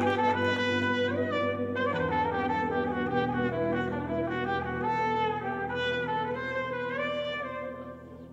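Trumpet playing a slow, winding melody over held low notes from the band, getting quieter near the end.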